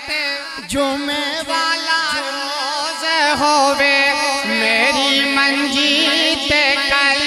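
A man singing a Punjabi naat through a microphone and PA, drawing out long, wavering melismatic phrases without words.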